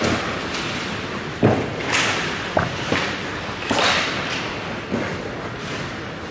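Ice hockey play around the net: skate blades scraping and hissing on the ice, with several sharp knocks of sticks and puck, the loudest about a second and a half in.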